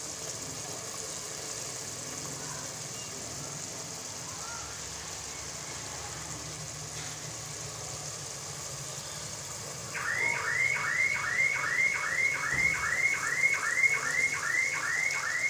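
Chicken curry simmering and sizzling steadily in an aluminium pot. About ten seconds in, a louder electronic alarm starts up, a rapidly repeating warbling tone about three times a second, and keeps going.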